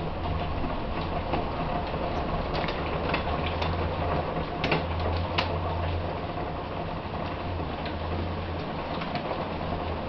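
Steady rain noise with scattered sharp ticks of drops, and a low hum underneath.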